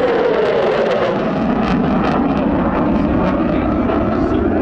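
Jet noise from a McDonnell Douglas F-15C Eagle's twin turbofan engines as it flies its display, a loud steady roar whose pitch falls over the first couple of seconds as the jet passes.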